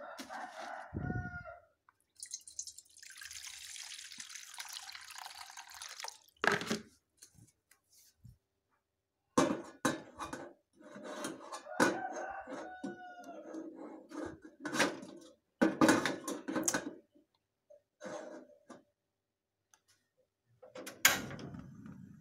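Water poured into a cooking pot for about four seconds, followed by scattered knocks and clatter of the pot and kitchen utensils.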